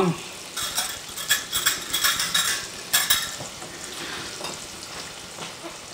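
A small whisk clicking and scraping against a measuring cup as egg wash is poured and scraped out into a bowl, for the first few seconds. Under it, the steady sizzle of diced onion frying in butter in a cast-iron skillet.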